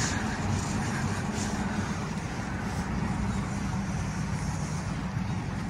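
Steady hum of road traffic, an even wash of noise with a faint low drone running under it.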